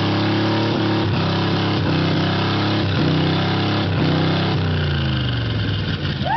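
Vintage car's engine held at high revs during a burnout, the rear whitewall tyre spinning in place with a rough noise over the engine tone. About four and a half seconds in, the revs fall away as the throttle is eased off.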